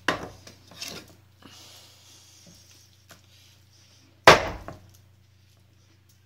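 A cleaver chopping through raw chicken backbone on a wooden chopping block: a sharp knock at the start and a lighter one about a second in, soft handling of the meat, then one loud chop about four seconds in.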